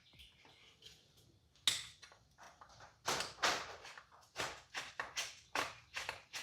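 A sharp click, then a regular run of short rasping strokes, about two a second, from hand work on the outboard's carburetor parts.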